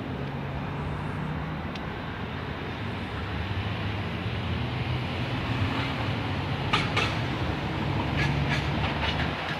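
Portland Streetcar running along its rails: a steady rumble with a low motor hum, getting somewhat louder about halfway through, and a few sharp clacks of the wheels over rail joints about seven and eight seconds in.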